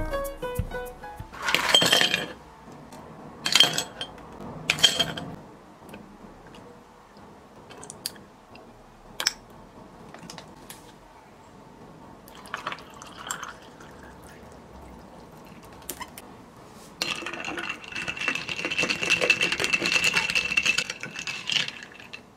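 A few clinks of ice and glass in a glass mug, then water poured from a plastic bottle over ice and syrup, a steady pouring hiss as the mug fills for several seconds near the end.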